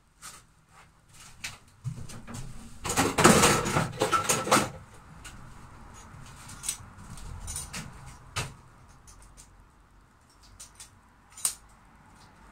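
Clicks and knocks of things being handled during caravan repair work, with a loud noisy scraping stretch lasting about a second and a half, about three seconds in.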